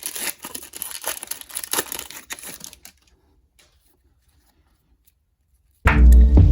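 A trading card pack's wrapper being torn open and crinkled, a dense crackle lasting about three seconds. It goes almost silent, then loud background music with a deep bass hum starts near the end.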